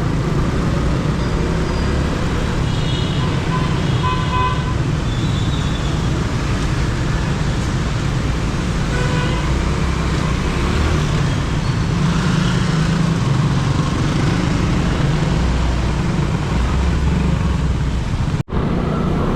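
Road traffic running steadily, with car horns honking briefly a few seconds in and again about nine seconds in. The sound cuts out for an instant near the end.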